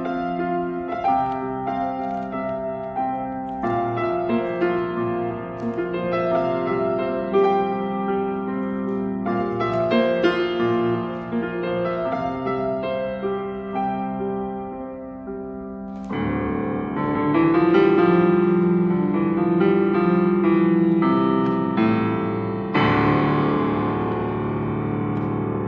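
Piano music: a melody over held notes, turning into louder, fuller sustained chords about two-thirds of the way through.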